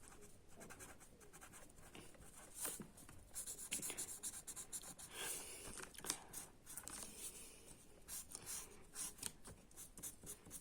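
Faint, irregular scratching of a colouring tool stroking back and forth on paper, filling in small areas of a drawing.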